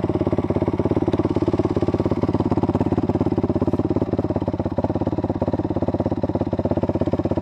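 Honda CRF250X dirt bike's single-cylinder four-stroke engine idling, a steady, fast, even pulsing.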